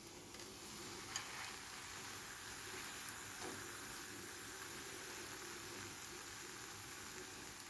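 Faint, steady sizzle of hot oil frying batter-coated eggs in a nonstick pan, the coating fried crisp, with a faint tick about a second in.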